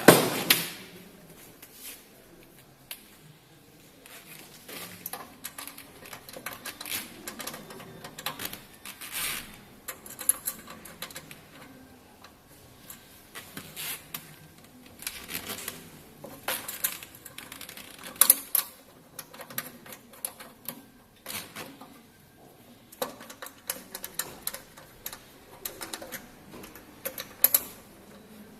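EDM hole-drilling machine at work, with irregular bursts of sharp crackling clicks, and a loud sharp knock right at the start.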